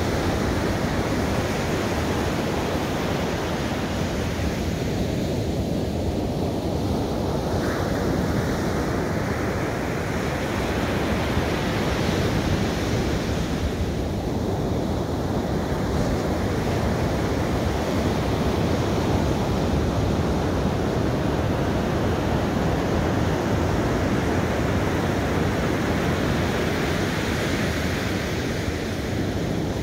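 Ocean surf: waves breaking and washing up a sandy beach in a steady rush that swells and eases every several seconds.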